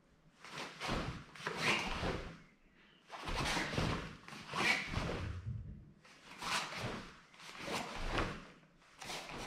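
Cloth of a karate gi swishing and rustling with each move of a sai kata, along with bare feet shifting on the mats: a string of short rushes of noise, several per few seconds, some coming in pairs.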